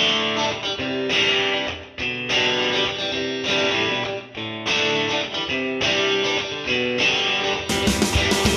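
Background music led by a strummed guitar, in short repeated phrases.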